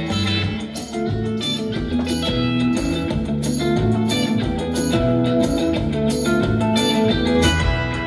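Instrumental library music with guitar and a steady beat, played back through a small 15 W Tesla bookshelf speaker box and picked up in the room.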